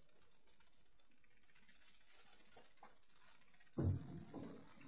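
Quiet room tone, then about four seconds in a sudden dull thump followed by brief rustling and a smaller knock, as the camera is bumped and handled.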